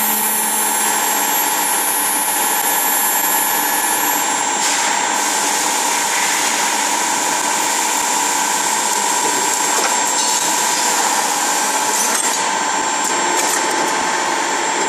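Automatic CNC key-cutting machine running: the milling cutters whine steadily at a high pitch over a loud machining noise, with a few sharp clicks from the mechanism.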